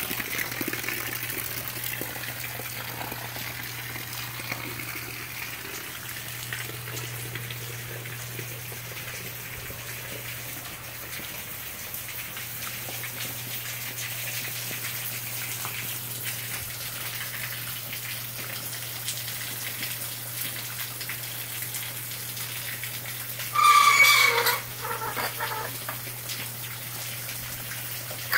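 Heavy rain pouring down in a steady rushing hiss, over a steady low hum. About three-quarters of the way through, a short loud pitched cry lasts about a second, followed by a couple of fainter ones.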